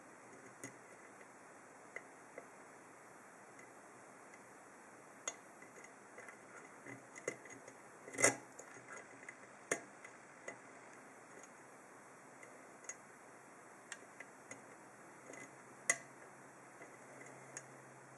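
Small metallic clicks and ticks of a lock pick working the pin stacks of an ASSA seven-pin oval cylinder held under tension, coming irregularly, with a louder click about eight seconds in and another near the end.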